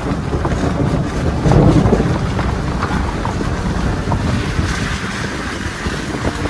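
A 2021 Ford Bronco Sport Badlands driving on a wet, muddy dirt trail: wind buffeting the microphone over the splash and hiss of tyres through mud and puddles, with scattered clicks of gravel.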